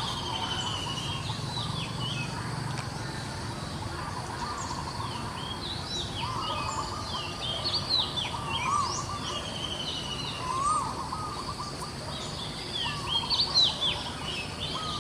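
Birds chirping and calling outdoors: many short, high, sweeping notes and trills come and go over a steady background hiss, growing busier and louder in the second half.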